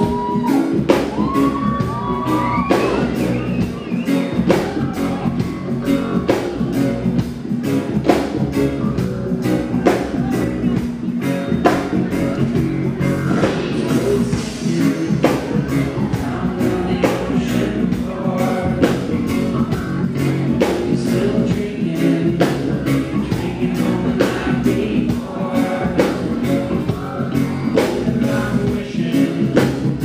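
Live reggae band playing, with sung vocals and electric guitar over a steady beat and heavy low end, heard from the audience.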